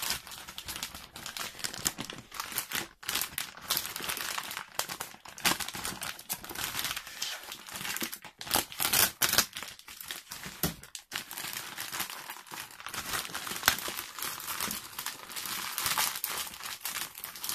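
Plastic courier mailer torn open and crinkled by hand, then the black plastic bag inside handled: a continuous crackling rustle of thin plastic with many sharp crackles.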